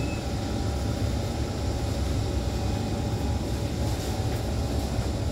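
Steady low rumble and hiss inside the passenger car of an SMRT C151 metro train.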